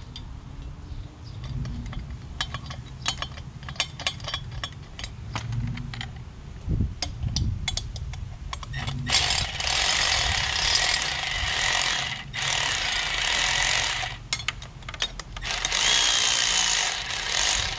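Milwaukee cordless ratchet running in three short bursts, snugging the exhaust header nuts on a Yamaha MT-07's cylinder head. Before it, several seconds of light metal clicks and knocks.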